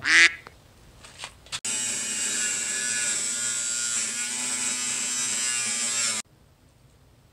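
Angle grinder with a cut-off disc cutting through a steel floor beam under the drain hole: a steady whining buzz that starts abruptly under two seconds in and cuts off sharply about a second before the end. A brief loud sound comes at the very start.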